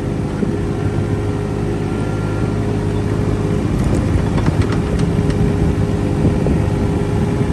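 Mini excavator's diesel engine running steadily under load while its hydraulics work the bucket, with a few sharp knocks and cracks about four to five seconds in as a tree stump is dug out.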